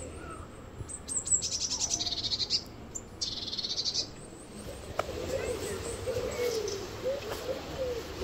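Songbird singing two fast, high trills of quickly repeated notes, about a second in and again around three seconds in, followed from about five seconds in by a series of soft, low, wavering calls.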